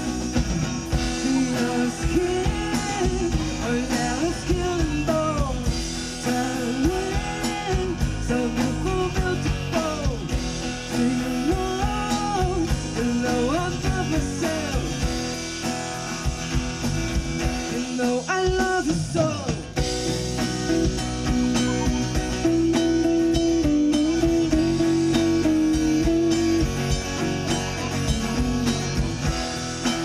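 Live rock band playing: a singer over acoustic guitar, electric guitar, bass and drum kit, the voice carrying the melody for most of it before held notes take over in the last third.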